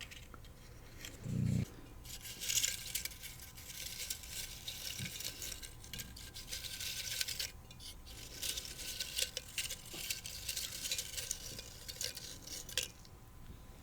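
Fingers stirring through folded paper quote slips in a jar: a dense, crackly rustle with light clinks against the jar, stopping shortly before the end. A short soft bump just over a second in.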